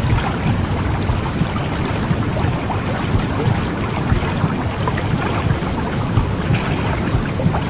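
Womb white-noise recording for soothing babies: a steady low rumbling whoosh with a fine crackly hiss on top.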